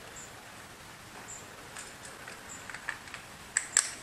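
Handling noise from a camera set down face-up: a few short, faint high chirps about a second apart, then a cluster of sharp clicks and knocks near the end as someone leans over and reaches for it.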